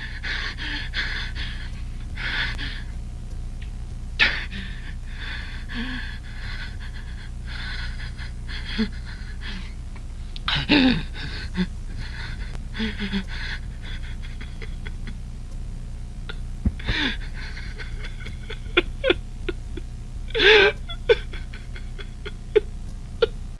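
A man panting and gasping heavily, with scattered clicks and a steady low hum underneath. The sound cuts off abruptly at the end.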